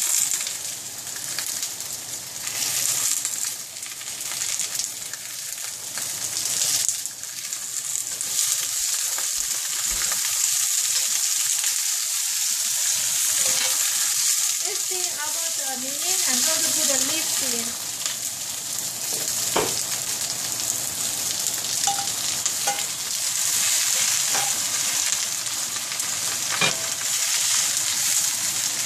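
Napa cabbage sizzling steadily as it stir-fries in hot oil in a cast-iron skillet, with a spatula stirring and scraping through it. A couple of sharp knocks sound in the second half.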